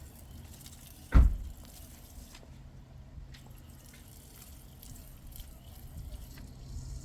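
A sharp thump about a second in, then faint water dripping and trickling with scattered small ticks.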